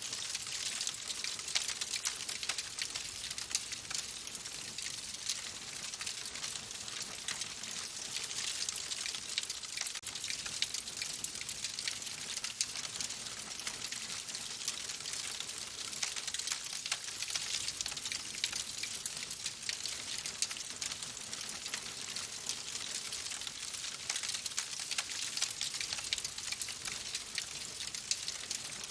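Wood fire crackling in a fireplace: a dense, steady run of small snaps and pops over a soft hiss.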